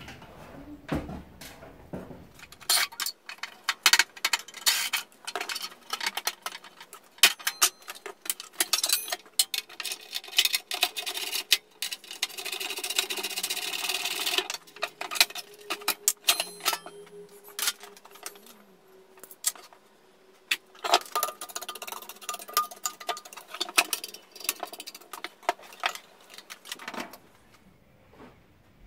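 Rapid, irregular clicking and clattering of hand tools and metal parts as an old benchtop table saw is taken apart to free its motor. About halfway through there is a steadier hiss lasting a couple of seconds.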